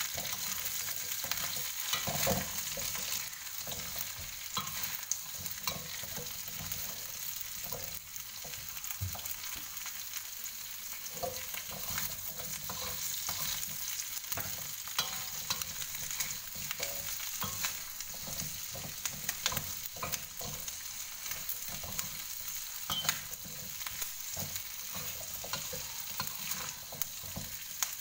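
Chicken feet, carrot and potato chunks sizzling in hot oil in a wok, stirred continuously with a metal spatula. A steady sizzle runs under frequent sharp scrapes and clicks of the spatula against the pan.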